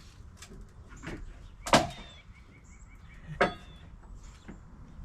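Two sharp knocks about a second and a half apart, with a few lighter taps around them, from work on wooden deck boards and framing.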